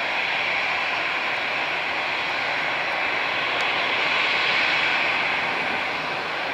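Twin turbofan engines of a Cessna 680A Citation Latitude business jet, a steady rushing jet noise as it moves fast along the runway, swelling slightly about four to five seconds in and easing a little near the end.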